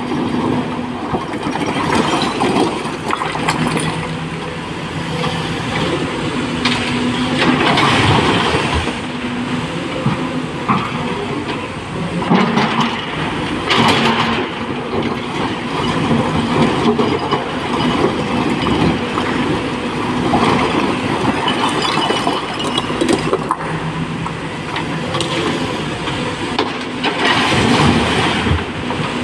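SANY SY225 hydraulic excavator's diesel engine running, its pitch rising and falling under hydraulic load as the bucket works a pile of broken rock. Several loud bursts of rock scraping and clattering, the last as a bucketful is dumped into a tipper truck near the end.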